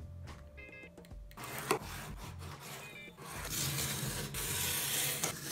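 Utility knife blade drawn along a steel ruler, slicing through corrugated cardboard. After a quieter start with a sharp click, the cut turns into a steady scratchy rasp about three seconds in.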